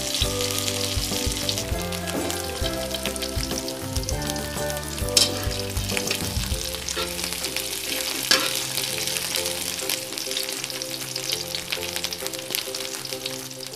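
Sliced onion sizzling as it sautés in hot oil in a wok, with a spatula stirring and scraping the pan. There are two sharper knocks, about five and eight seconds in.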